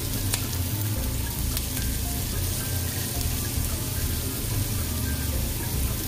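Onions and carrot sticks sizzling in oil in a stainless steel frying pan: a steady crackling hiss.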